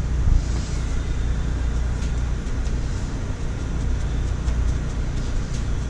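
A steady low rumble from an unseen source, with faint rustling and small ticks as crappie fillets are pressed and turned in dry breading in a foil pan.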